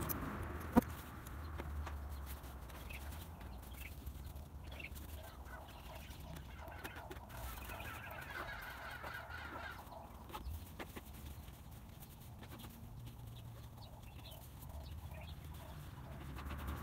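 Hens clucking in short repeated notes, with one longer pulsing call midway, over a low steady rumble; a single sharp knock about a second in.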